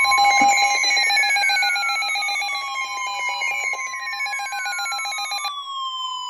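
NOAA Weather Radio warning alarm tone: a steady high tone with a fast pulsing electronic alarm beeping over it and repeated falling siren-like sweeps. The beeping stops about five and a half seconds in, leaving the steady tone and a falling sweep.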